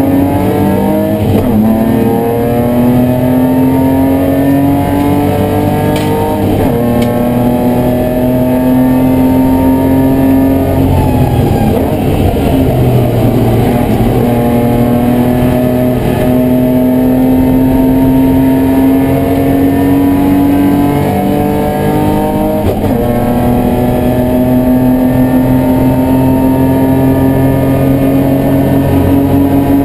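BMW E30 race car's engine heard from inside the cabin, pulling hard with its note rising steadily. The rising note breaks and drops for gear changes about six and a half seconds in and again near twenty-three seconds. Around eleven to fourteen seconds the revs fall and the sound turns rougher before the note picks up again.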